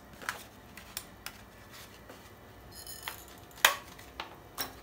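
Handheld single-hole paper punch being worked on folded paper: a few short clicks and light paper handling, the sharpest click about three and a half seconds in.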